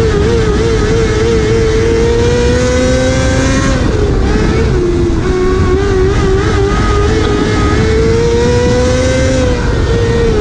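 Dirt-track race car engine at racing speed, heard from inside the cockpit. The pitch climbs steadily along the straights and drops sharply as the driver backs off for the turns, about four seconds in and again near the end.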